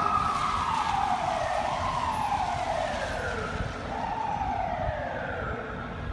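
FDNY fire engine's siren wailing in repeated sweeps: each tone falls slowly, then jumps back up, each peak a little lower than the one before, over a low rumble. It grows gradually fainter.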